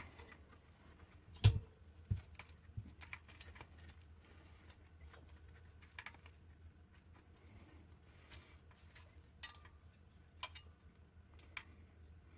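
Scattered light clicks and taps of hands working a wheelchair wheel and tyre during a tyre change, with one sharp knock about one and a half seconds in, over a low steady hum.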